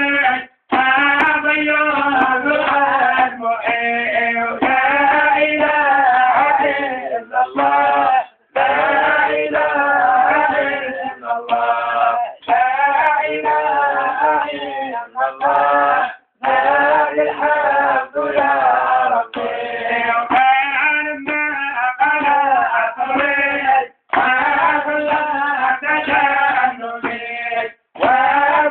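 Male voices singing in long, wavering melodic phrases with held notes, each phrase broken by a brief pause, about every eight seconds.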